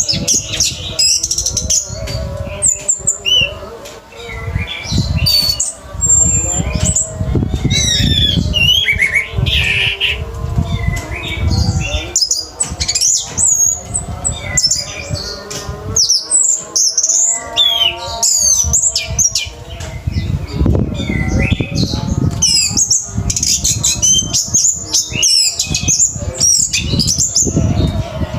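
Orange-headed thrush singing in a rapid, nonstop torrent of quick whistled glides and squawky notes, the frenzied 'teler' song of an excited male. Repeated low thumps sound beneath the song.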